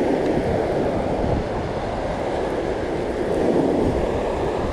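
Surf breaking and washing up the beach: a steady rush of water with no distinct strokes.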